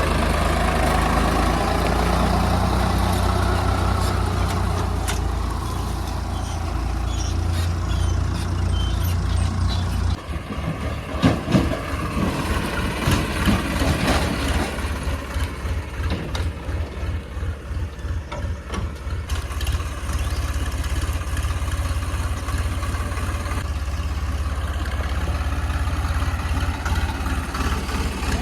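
Heavy diesel engine running, steady and fairly loud at first; about ten seconds in it drops to a lower, pulsing chug, with a few knocks and clanks.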